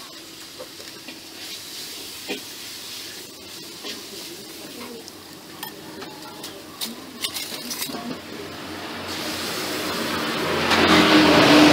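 Metal spoons clinking lightly against a ceramic soup bowl as the soup is stirred and served, a scattering of short clinks. Near the end a louder rushing noise with a low hum builds up and covers them.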